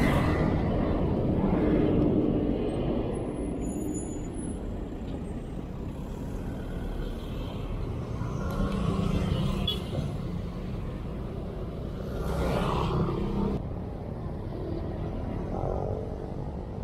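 Road traffic: a steady rumble of motor vehicles passing, swelling louder near the start and again about twelve seconds in.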